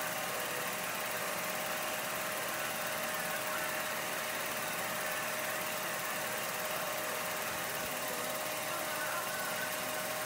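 Film projector running: a steady mechanical whir with a thin steady hum.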